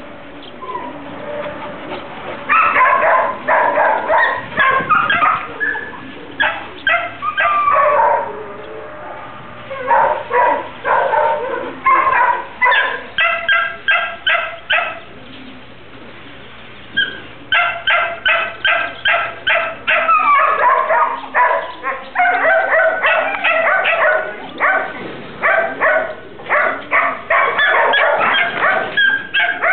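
A dog barking and yelping in rapid runs of short sharp barks, several a second, with a brief lull about halfway through.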